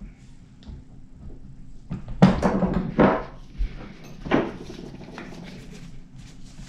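Frozen crankshaft being dropped into a heated Yamaha Raptor 700 engine case: several metal clunks and knocks, the loudest about two, three and four seconds in, as the cold crank slides into the expanded main bearing and seats.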